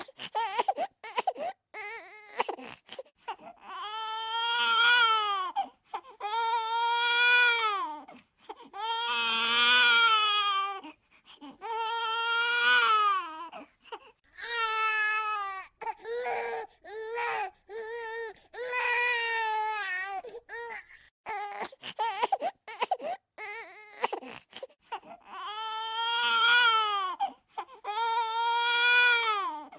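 A baby crying hard: repeated long wailing cries of a second or two each, broken by short gasping, sobbing bursts between them.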